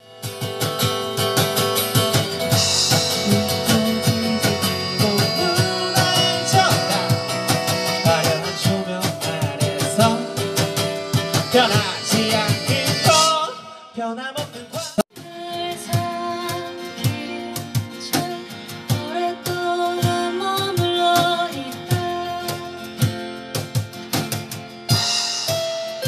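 Live acoustic band music: strummed acoustic guitars with percussion and singing. The music breaks off a little past halfway and starts again a second or so later.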